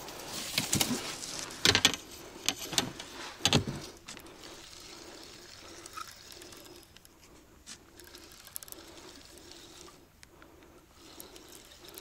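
Water splashing in several short bursts during the first four seconds, then a faint steady trickle and small clicks.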